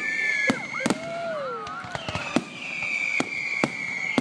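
Aerial fireworks going off: several sharp bangs a second or so apart, over long high whistling tones from whistling shells, one gliding down in pitch about a second in.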